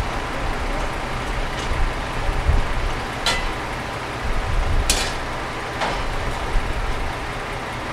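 A heavy vehicle's engine running with a steady low rumble, with three short, sharp sounds around the middle.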